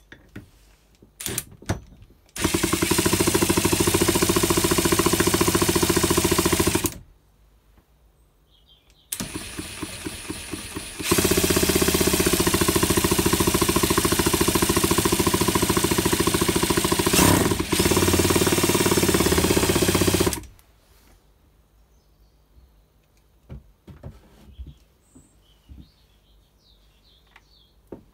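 A power tool's motor running loud in two long bursts, about four and nine seconds long, with a quieter run between, each with a fast, even pulse and a sudden stop; a few handling clicks come before it.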